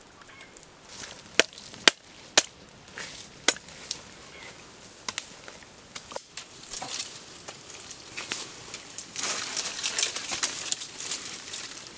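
Several sharp knocks of a knife blade chopping at the ground over the first few seconds, then a stretch of rustling, crackling leaves and twigs near the end.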